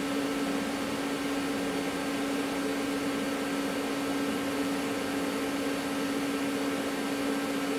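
TIG welding arc on an exhaust downpipe: a steady electric buzz with one constant pitch over an even hiss, unbroken.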